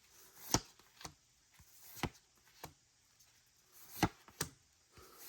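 Pokémon trading cards being flipped through by hand one at a time, the card stock giving about six sharp, irregular snaps and taps.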